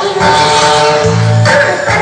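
Background music with singing, a plucked guitar and a steady bass pattern.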